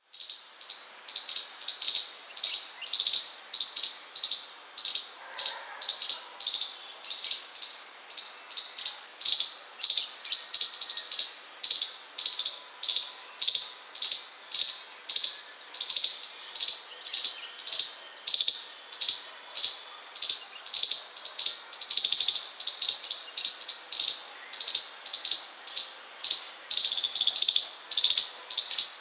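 A chipmunk chirping over and over: short high-pitched chips at a steady rhythm of about two a second.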